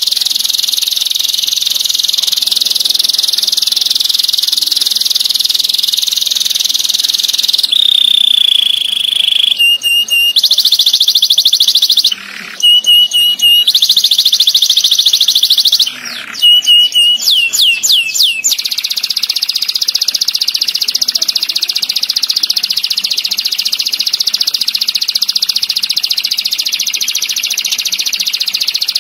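Domestic canary singing long, very fast rolling trills, high-pitched and dense. It changes phrase several times near the middle, with two brief breaks and a run of quick downward-sweeping notes, then settles into one long unbroken trill.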